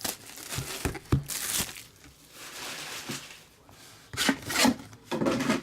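Card packaging being torn open and crinkled by hand, in several short bursts of tearing and rustling.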